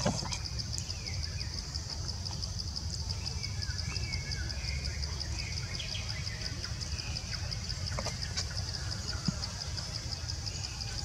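Forest ambience: a steady, finely pulsing high insect drone with faint bird chirps over a low rumble, and a few sharp clicks.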